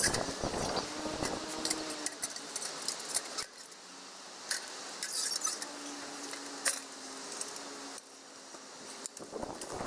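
Metal parts of a G-Stove wood stove clinking, rattling and scraping as they are handled and fitted together: a run of irregular light metallic clicks.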